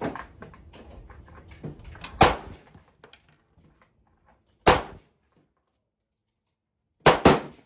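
Gunshots from a 9 mm semi-automatic pistol: a quick pair about two seconds in, a single shot about halfway through, and another quick pair near the end.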